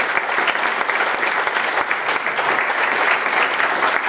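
Crowd applauding: many people clapping in a dense, steady patter.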